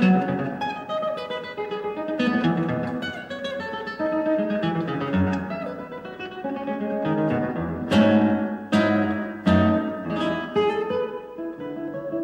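Background music of acoustic guitar: plucked notes with a few sharp strums about two-thirds of the way in.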